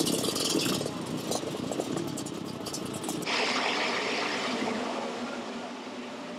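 A field of 500cc motocross bikes revving together on the start line, a dense wall of engine noise. About three seconds in the sound changes abruptly, and as the gate drops and the pack launches off the line it eases down slowly.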